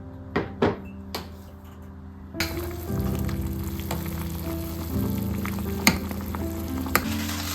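Food sizzling as it fries in a pan, starting about two seconds in after a few sharp clicks, over soft background music.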